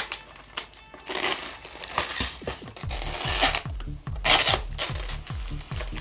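Packaging of a Peyang cup yakisoba being torn open and handled, with bursts of plastic and paper rustling and crinkling, the loudest about a second in and again past four seconds. Background music with a steady bass beat comes in about halfway through.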